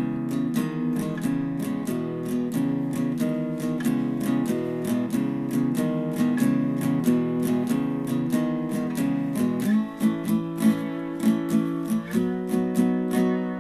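Acoustic guitar playing a blues boogie, strummed in a steady shuffling rhythm, with a light tick keeping the beat about four times a second.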